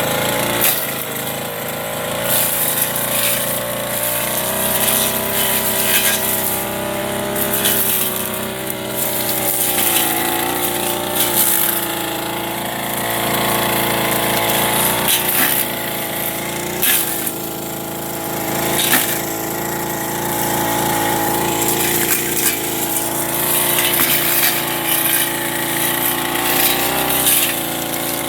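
Backpack brush cutter's small 30cc engine running under load, its pitch rising and falling as the blade works through weeds, with repeated sharp cracks where it strikes scattered oil palm fronds.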